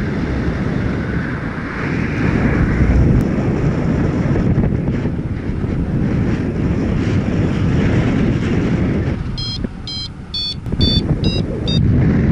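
Strong wind buffeting the microphone in flight. Near the end, a quick run of about six short electronic beeps at shifting pitch, typical of a paragliding variometer's climb tone.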